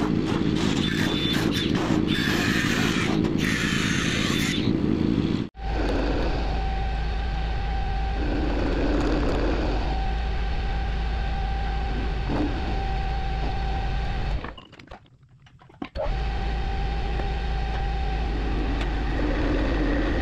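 Metal lathe running with a steady motor hum and a held whine, dropping out briefly about fifteen seconds in. For the first five seconds a louder, harsher machine noise comes before it.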